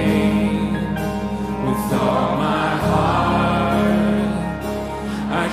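Background song with sustained chords and singing voices; the bass note changes about three seconds in.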